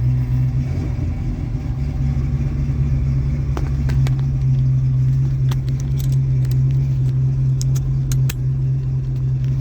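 Ford Mustang Mach 1's V8 engine running steadily with a low rumble, heard from inside the car. Light clicks and rattles come several times in the second half.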